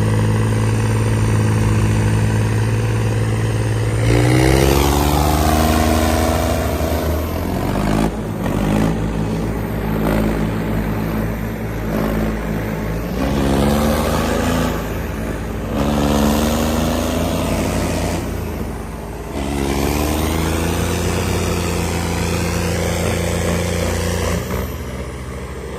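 Diesel tractor engines of a John Deere 5075 and a New Holland 3630 working under heavy load in a tug-of-war. Their revs climb and settle again about four times over a steady low drone.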